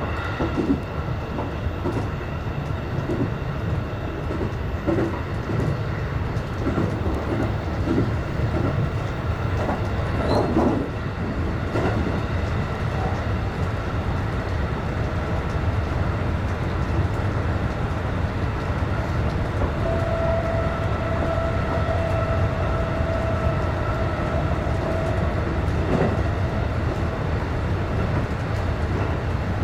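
JR West 223 series electric train running along the track, heard from inside the cab: a steady rumble of wheels on rail, with knocks over rail joints through roughly the first dozen seconds. A steady tone comes in a little past the middle and holds for about five seconds.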